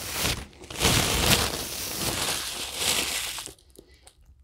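Close-up crunching and crinkling as a burger with crispy chicken nuggets inside is bitten into while held in its paper wrapper. It stops suddenly about three and a half seconds in.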